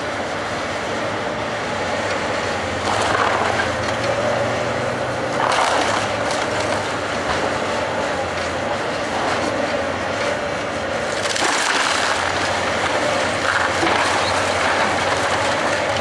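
Komatsu hydraulic excavator running steadily while demolishing a wooden house, with louder bursts of crunching wood and clattering debris about three seconds in, around six seconds and around twelve seconds.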